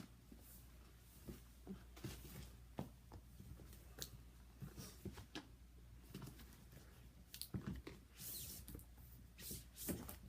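Faint, scattered clicks and short rustles of a cardboard sneaker box and its paper being handled and opened.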